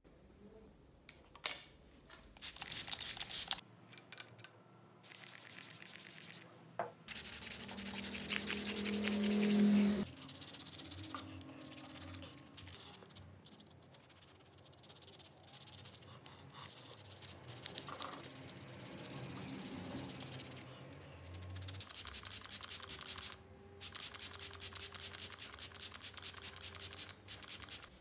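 Fast, repeated scraping and rubbing strokes of a small hand tool on the metal frame of a Swiss-style pocket knife, in stretches that stop suddenly. A brief low hum comes in about eight seconds in.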